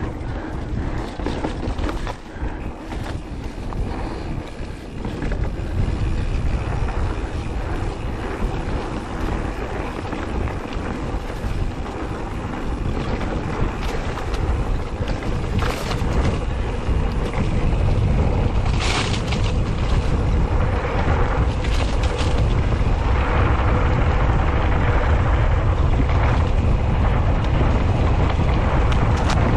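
Wind buffeting the microphone of a camera riding on a mountain bike at speed down a dirt singletrack, mixed with tyre rumble over the ground and the rattle of the bike over bumps. It grows louder about halfway through, with a few sharp knocks from bumps.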